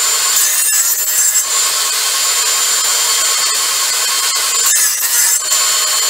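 Radial arm saw with a 10-inch blade running at speed with a steady high whine, pulled through a fence board twice to crosscut short pieces. Each cut adds a louder rasping stretch, the first lasting about a second near the start and the second about half a second near the end.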